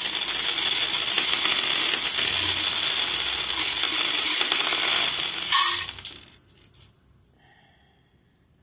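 A handful of letter dice for divination shaken together in a continuous dense rattle, ending about five and a half seconds in with a clatter as they are thrown onto the board, followed by a few last clicks as they settle.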